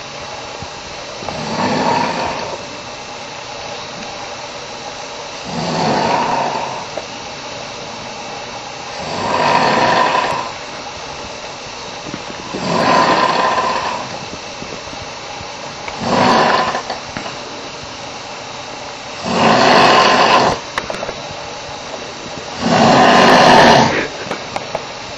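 A man snoring very loudly and rhythmically: seven rasping snores, each about a second long, one about every three and a half seconds, the last few loudest.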